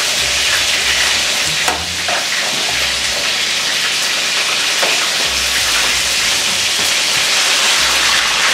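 Smash burger patties frying in a very hot pan: a steady, dense sizzle, with a couple of light clicks along the way.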